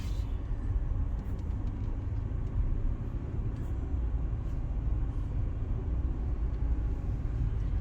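Steady low rumble of a car heard from inside the cabin, with the engine and road noise of a car creeping along in a queue of traffic.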